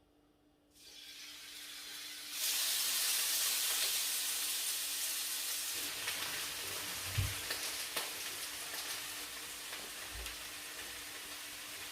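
Seasoned chicken breast sizzling in a hot, oiled grill pan. The sizzle starts under a second in, gets much louder about two and a half seconds in, then slowly eases, with a couple of soft low thumps along the way.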